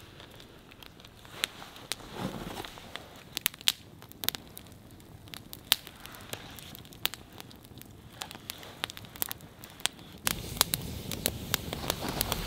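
Wood campfire crackling with frequent sharp pops, getting louder near the end.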